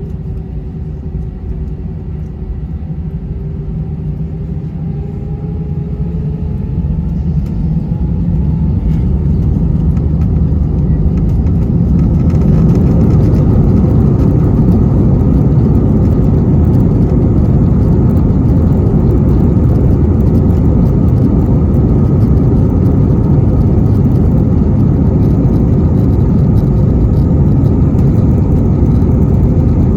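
Airbus A320's jet engines spooling up to take-off thrust, heard inside the cabin: a whine rising in pitch over the first several seconds while the noise builds. It then settles into a loud, steady rush of engine and rolling noise during the take-off run.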